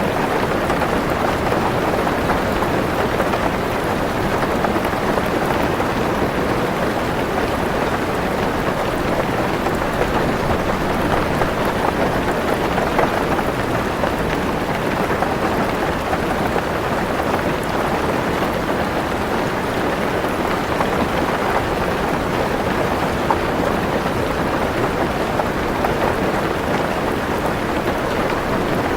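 Heavy rain drumming steadily on a car roof, heard from inside the car.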